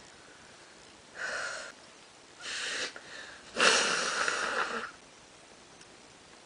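A person with a stuffed-up nose making loud, exaggerated nasal sniffs and snorts: two short ones, then a longer, louder one about three and a half seconds in.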